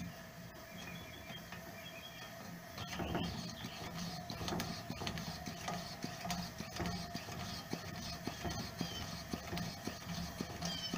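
Coleman 426D camp stove's fuel-tank pump plunger being worked by hand in a steady rhythm of about two strokes a second, starting about three seconds in, over the steady rush of its lit burners. The pumping raises tank pressure, and the burners' flames flare higher.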